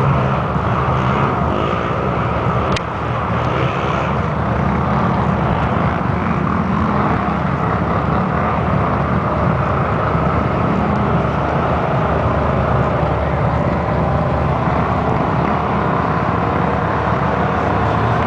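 Big Chevy truck's engine running loud and steady, with one sharp click about three seconds in.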